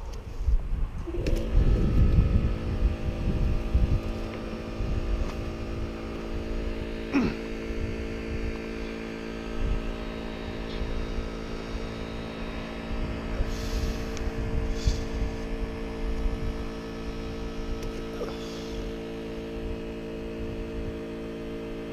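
A motor or engine starts about a second in, rising briefly in pitch, then runs with a steady, even hum. Wind buffets the microphone at first, and there is a single sharp click about seven seconds in.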